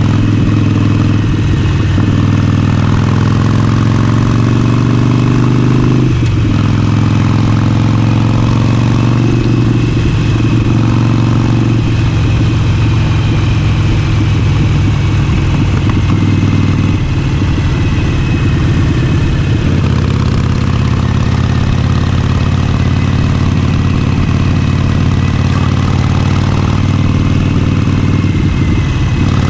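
Harley-Davidson Forty-Eight's air-cooled 1200 cc V-twin running under way, a steady, loud exhaust note whose pitch shifts a few times as the throttle and gears change.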